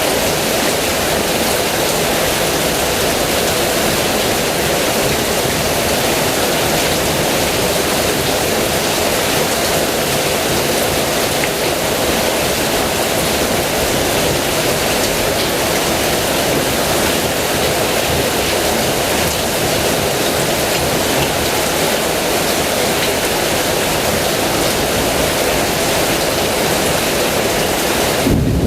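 Heavy rain falling as a steady, even hiss. Near the very end the hiss drops away and a low rumble sets in.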